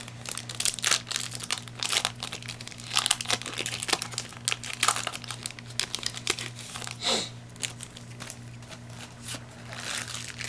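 Foil wrapper of a Yu-Gi-Oh booster pack crinkling as it is torn open and handled, with a steady low hum underneath.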